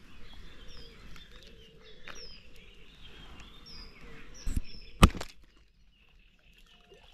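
Bait catapult being fired to loose-feed sweetcorn: two sharp snaps about four and a half and five seconds in, with small birds chirping throughout.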